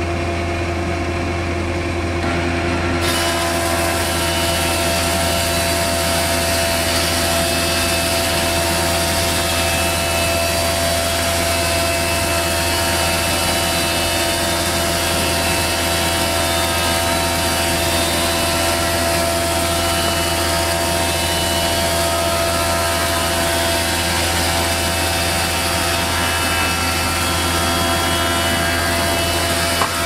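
20-inch thickness planer running steadily with a walnut board feeding through it: a loud, even machine hum with steady tones. A brighter hiss joins suddenly about three seconds in and holds.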